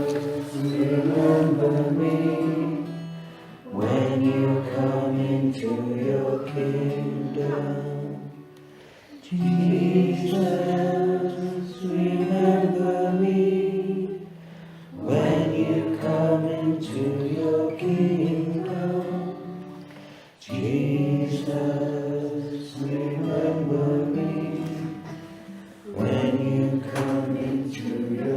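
A group of voices singing together in phrases of about five seconds, with short breaks between them.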